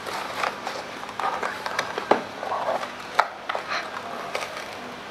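Scattered light clicks and rustles of hands handling a cardboard packaging insert and scissors.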